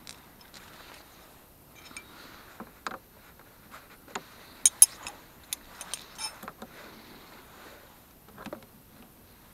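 Hands working on battery and winch wiring: scattered small metal clicks and taps with rustling between them, the sharpest click a little before five seconds in.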